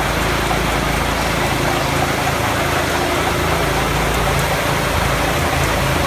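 Mini combine harvester running steadily while it cuts standing wheat: a steady engine drone under a dense, even rushing hiss from the cutting and threshing.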